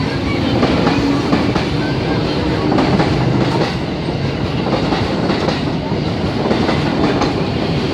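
Electric commuter train (KRL) running past along the platform: a steady loud rumble with wheels clattering over the rail joints.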